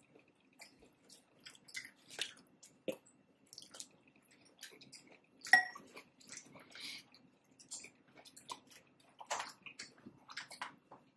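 Close-up eating sounds: chewing and crunching food with wet, clicky mouth noises in irregular bursts, and one louder click about five and a half seconds in.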